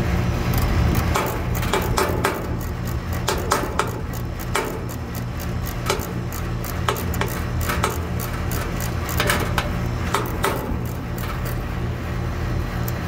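Irregular metal clicks and knocks of an HVAC service wrench turning the service valve stems on an air-conditioning condenser, opening the valves to let refrigerant into the freshly evacuated lines. A steady low machine hum runs underneath.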